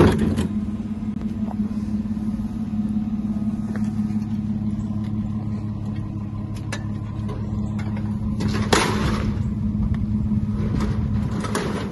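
Truck driving along: a steady engine hum with road noise, and a brief rushing burst about nine seconds in.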